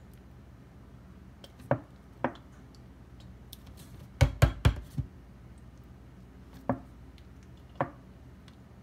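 Plastic bottle being tapped down on the counter to settle gel into it: a few separate knocks, with a quick run of four in the middle.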